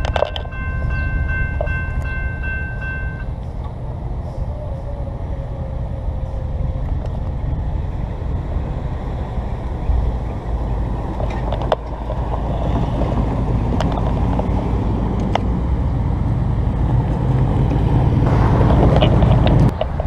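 Railroad grade-crossing warning bell ringing in quick repeated strokes, stopping about three seconds in as the crossing clears. A steady low rumble runs underneath, growing louder in the second half and loudest just before the end.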